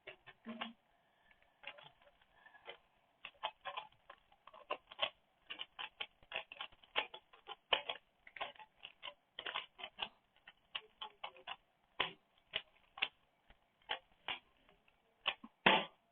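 Rubik's Cube being turned rapidly during a timed solve: a quick, irregular run of plastic clicks and clacks as the layers snap round.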